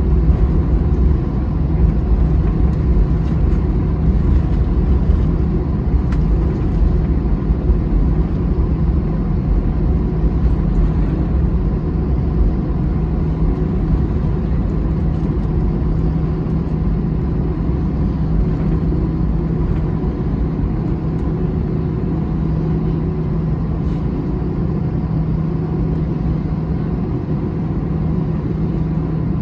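Airbus A321-211 cabin during taxi: the CFM56 engines at idle give a steady hum over a low rumble, which grows a little quieter toward the end.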